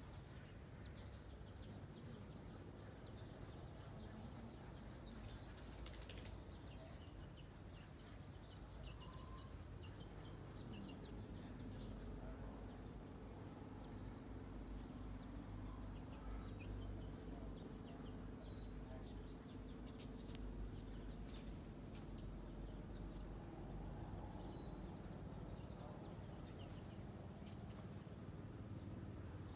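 Faint outdoor ambience: a steady high-pitched insect drone throughout, with scattered faint short chirps, a low rumble and a few soft clicks.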